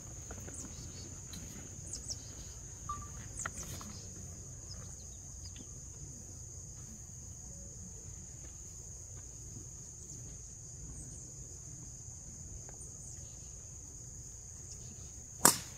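Steady high-pitched insect drone, with one sharp crack near the end as a golf club strikes the ball on a tee shot.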